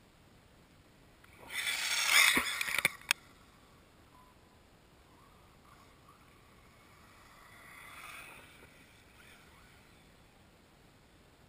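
ECX Revenge 1/8-scale all-wheel-drive electric RC buggy rushing close past for about a second and a half, throwing snow, ending in a few sharp knocks. A fainter, shorter pass swells and fades about eight seconds in.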